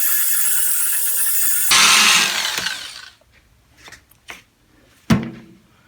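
Power drill spinning a foam polishing pad to work cleaner wax onto a sheet-metal toolbox, with a steady whine; a bit under two seconds in the sound changes to a louder rush that dies away over the next second. Then a few light clicks and one sharp knock about five seconds in.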